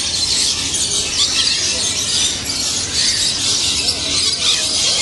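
A dense, steady chorus of many birds chattering at once, high-pitched and continuous.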